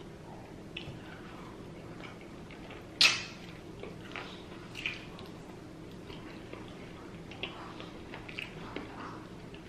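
Close-up eating sounds: wet chewing and lip smacking, scattered small clicks, with one louder sharp sound about three seconds in.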